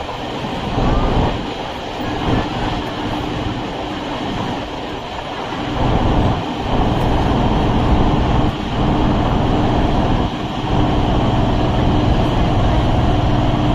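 Electric suburban train running along the track: a steady rumble with a constant hum, growing louder about six seconds in.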